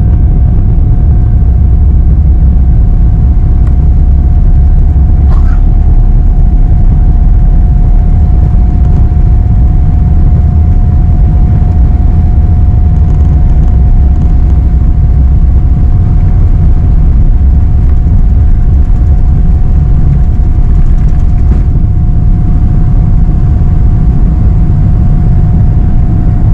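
Boeing 777-300ER's GE90-115B turbofans at takeoff power, heard inside the cabin as the jet accelerates down the runway and lifts off: a loud, steady low rumble with a constant engine whine above it.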